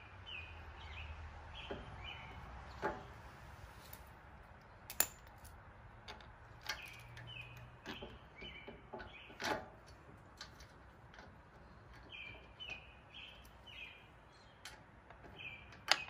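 A small bird chirping in short repeated phrases, with scattered sharp clicks and knocks as a motorcycle floorboard and its mounting hardware are handled and fitted to the footpeg mount. The loudest knocks come about five seconds in and just before the end.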